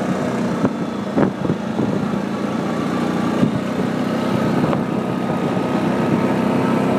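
Snowmobile engine running steadily under way, with a couple of short knocks about a second in.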